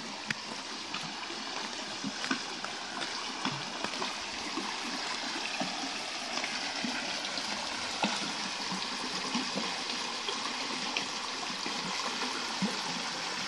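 A shallow creek running over rocks and shale in a small riffle: a steady sound of flowing water with a few brief clicks scattered through it.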